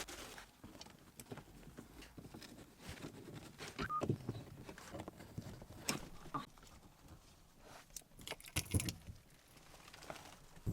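Scattered light knocks, clicks and rustling from hands handling parts and trim while fitting a GPS tracker in a car boot.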